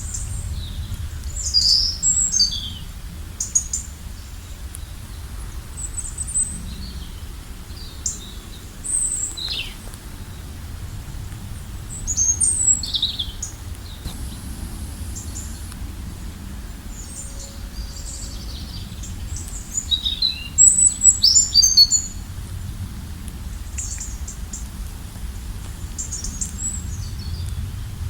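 Wild songbirds chirping and calling in short, quick, irregular phrases, with clusters of calls about two seconds in, around twelve seconds and around twenty seconds, over a steady low rumble.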